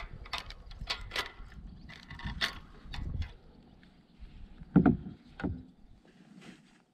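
Irregular knocks and clatter of handling on a fishing kayak: several sharp knocks in the first three seconds, and the two loudest close together about five seconds in.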